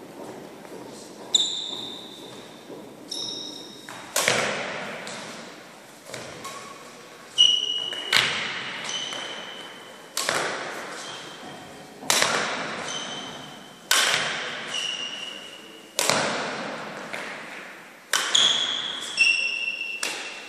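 Badminton rackets hitting a shuttlecock, a sharp crack about every two seconds, each echoing through a large sports hall. Short high squeaks come between some of the hits.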